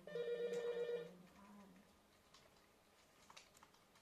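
A telephone ringing: one electronic, rapidly pulsing ring about a second long at the start, followed by a few faint clicks.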